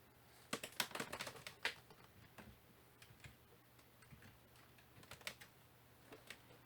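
Faint typing on a computer keyboard: a quick run of keystrokes in the first couple of seconds, then scattered single key clicks.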